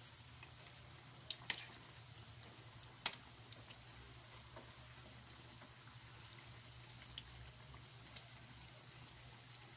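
Squash fritters frying in oil over a low flame: a faint steady sizzle with a few sharp clicks and pops, the loudest about a second and a half and three seconds in.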